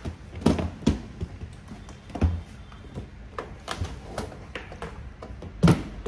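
Hard-shell guitar cases knocking and bumping against each other as one is shifted and pulled out of a stack: a string of irregular knocks and thuds, the loudest a little before the end.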